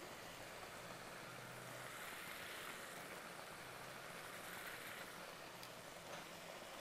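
Faint, steady sizzling of chicken pieces and ground masala cooking in oil in a pan.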